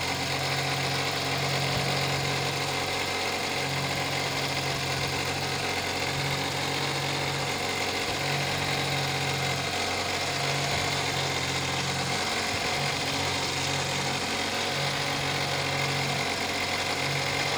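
An engine idling steadily on the fishing boat, with a low hum that pulses on and off every couple of seconds.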